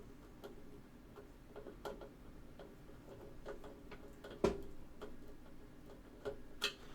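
Scattered small clicks and taps of a screwdriver and screw working against a computer case's drive bay, with one sharper knock about four and a half seconds in and another near the end.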